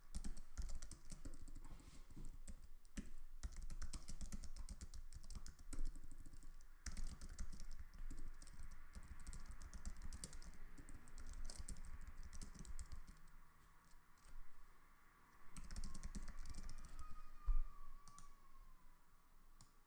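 Typing on a computer keyboard: quick runs of key clicks, with a short lull about two-thirds of the way through before the typing picks up again.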